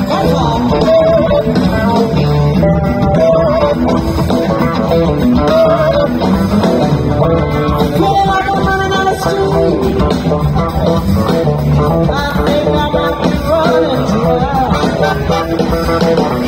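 A live rock band playing over a PA: electric guitar, bass and drums, with a woman singing in a bluesy style.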